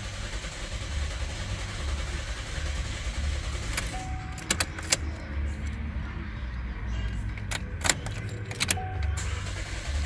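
Chevrolet Cruze 1.4-litre turbo four-cylinder turning over on the starter without firing, because its fuel injector connector is unplugged. A few sharp clicks and key jingles come around the middle and near the end.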